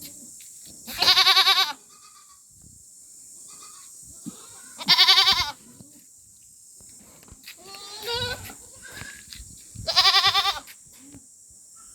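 Barbari goats bleating: three loud, quavering bleats about four seconds apart, with a quieter call between the second and third.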